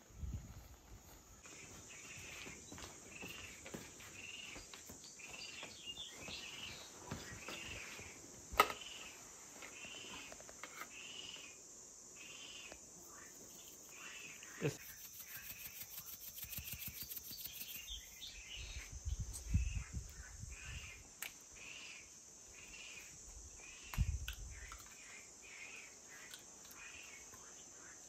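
Insects chirping in a steady rhythm, one short chirp about every two-thirds of a second over a continuous high trill. A few sharp knocks and low thumps of handling break in now and then.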